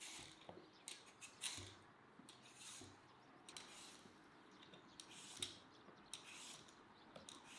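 Y-shaped vegetable peeler scraping the skin off a raw potato in a series of short, quiet strokes, about one or two a second.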